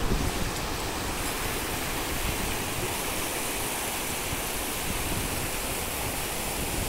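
A fast mountain river rushing steadily over a boulder bed.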